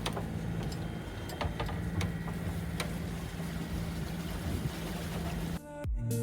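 Sailboat's engine running steadily with a low, even hum, with a few sharp clicks over it. Music starts near the end.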